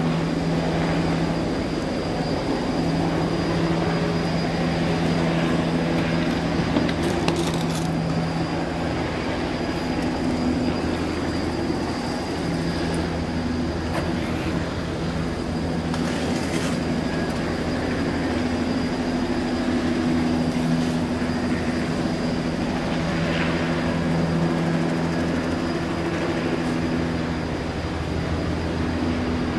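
Steady low mechanical drone, with several hum tones that swell and fade over stretches of a few seconds, and a few light knocks.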